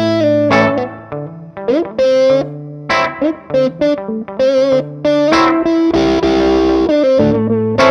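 Background music led by electric guitar, playing a run of changing notes with some slides.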